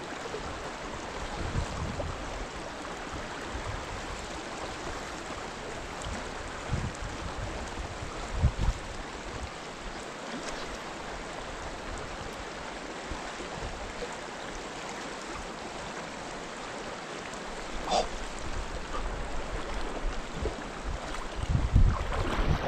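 Creek water rushing through a shallow riffle, a steady wash of noise, with a few short low thumps in the first half.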